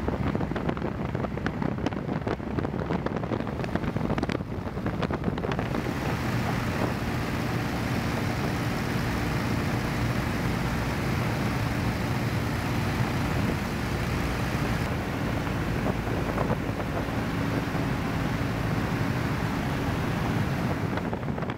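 Steady aircraft engine drone with wind rushing over the microphone, with some crackling in the first few seconds.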